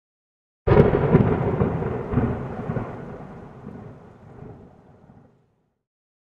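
A sudden loud crack and rumble, thunder-like, that dies away steadily over about four and a half seconds.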